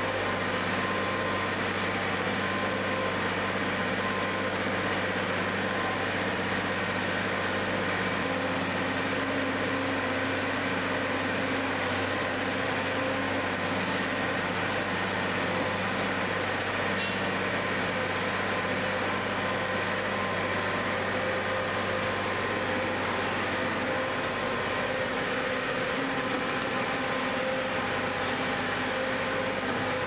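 Tractor-drawn TMR mixer wagon running as it discharges chopped green fodder through its side door: the tractor engine and the wagon's mixing machinery make a steady mechanical hum with a few constant whining tones.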